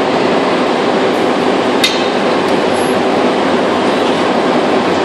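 Steady, loud machinery noise of a metal ingot-casting line, with a single metal clink of a tool against the pan or moulds about two seconds in.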